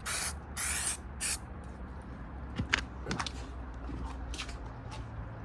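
Degreaser sprayed in three short hissing bursts onto a plastic outboard engine cover, followed by a few light clicks and knocks.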